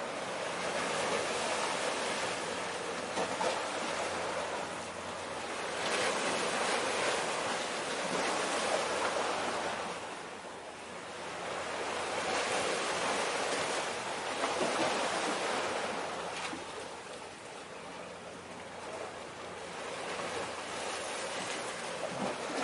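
Small waves washing against the shore, a steady rush of water that swells and eases every five or six seconds.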